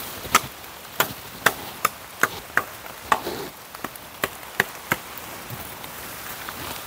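Dry wood being chopped by hand: about ten sharp strikes in quick succession, roughly two a second, stopping about five seconds in, over a steady hiss of rain.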